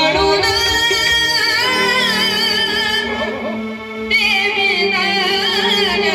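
A solo voice singing long, wavering, ornamented notes over steady musical accompaniment. The voice drops away briefly about three seconds in and comes back strongly at about four seconds.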